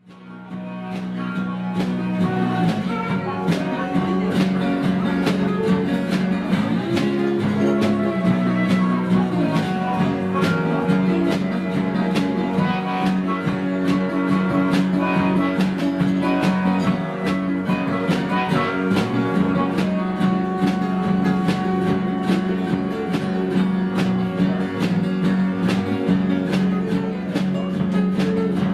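Instrumental passage of a song, led by guitar, with a steady beat and no singing. It comes in out of a brief hush at the very start.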